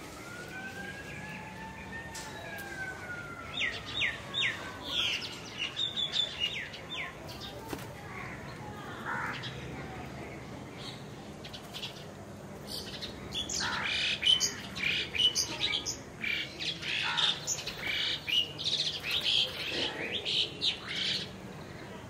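Birds chirping and chattering in short bursts, with a dense stretch of calls in the second half. A faint tone slides slowly up and then back down over the first few seconds.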